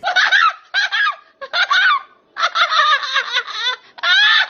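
A person's loud, high-pitched honking vocal outbursts in five bursts with short breaks between them, the last two longer. They come as the reaction to the sting of a mouthful of wasabi.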